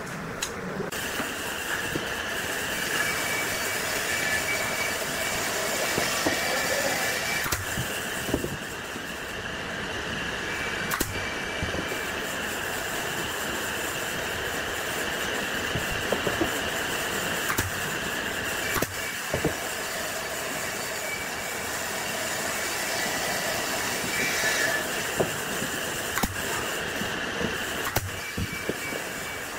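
Steady machine running noise with a high whine, and scattered sharp knocks of wooden pieces being fitted into a wooden frame.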